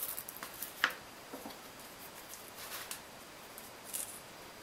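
Floral tape being pulled off its roll and handled: faint rustling with a few light clicks, the sharpest about a second in.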